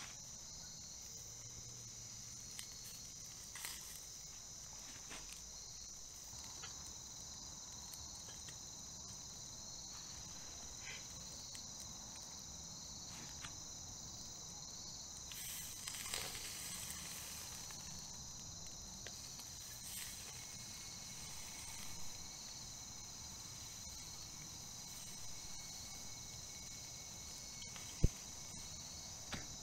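Night insects trilling steadily in two high-pitched, unbroken tones, with a few faint crackles and small knocks. Near the end there is a single sharp metallic click as a fork knocks against the firebox grate.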